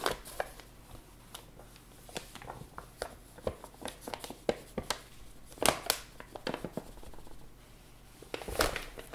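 Paper flour bag crinkling and rustling as flour is poured from it into a glass measuring cup, with a few sharper crackles.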